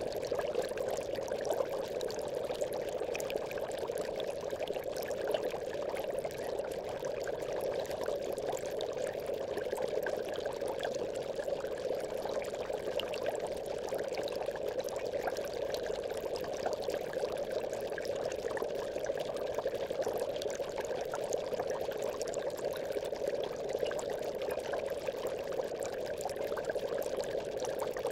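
Aquarium bubbles: water bubbling in a continuous, steady stream.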